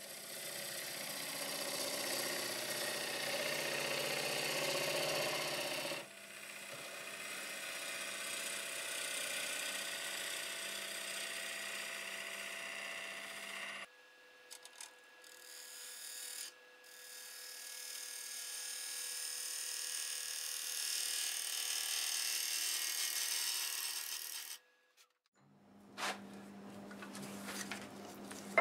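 Lathe tools cutting wet green cherry wood on a spinning bowl: a steady, hissing scrape from a bowl gouge and then a scraper, in several long stretches broken by abrupt cuts. Near the end the cutting stops, leaving a quiet hum and a couple of sharp clicks.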